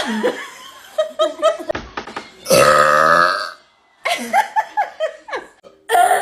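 A woman burping: one long, loud, deep burp about two and a half seconds in, lasting about a second.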